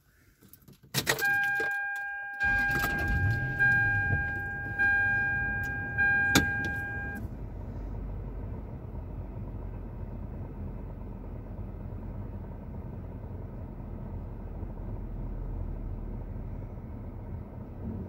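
Car keys jangling and clicking in the ignition, then the car's warning chime dinging about once a second. About two and a half seconds in the engine starts and settles into a steady idle, heard from inside the cabin; the chime stops about seven seconds in.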